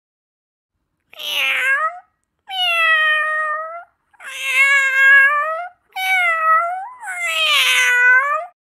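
Domestic cat meowing: five drawn-out meows in a row, each about a second long.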